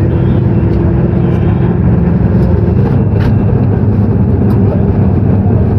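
Steady, loud road rumble and engine noise heard from inside a moving vehicle, with a faint steady hum in the first second or so.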